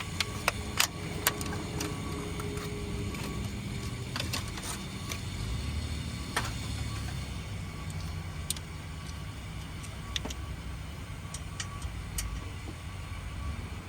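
Hand tools clicking and tapping against metal while working on the header bolts: a few sharp clicks close together at the start, then single ones every couple of seconds, over a steady low hum.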